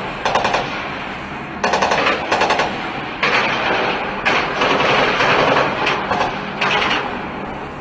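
Automatic gunfire in about five rapid bursts with short pauses between them; the longest burst, near the middle, lasts nearly two seconds.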